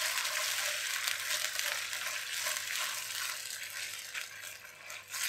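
Chili-tomato sauce sizzling in hot oil in a non-stick wok while a silicone spatula stirs it, a steady hissing sizzle with light stirring strokes.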